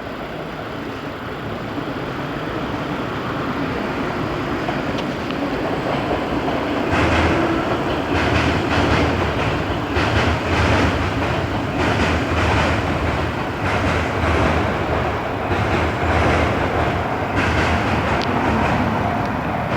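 Odakyu 1000 series electric train passing, its wheels clattering rhythmically over rail joints. The sound builds over the first several seconds, is loudest through the middle, and eases near the end.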